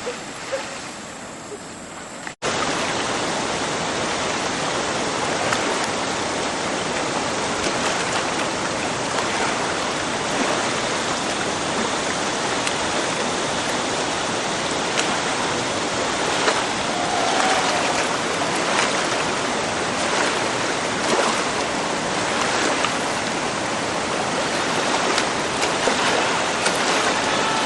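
Whitewater river rapids rushing: a steady, loud wash of churning water that cuts in abruptly about two seconds in after a quieter stretch.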